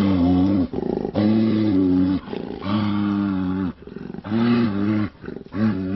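Angry Eurasian brown bear roaring in a run of about five deep calls, each up to about a second long with short breaks between them, as it comes round from a tranquilizer.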